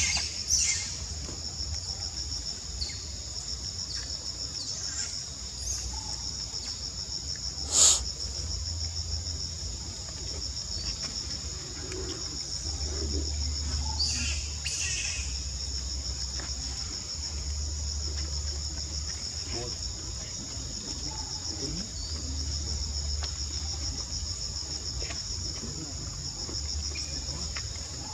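Steady high-pitched insect chorus, a continuous pulsing buzz, with a sharp click about eight seconds in and low rumbles that come and go.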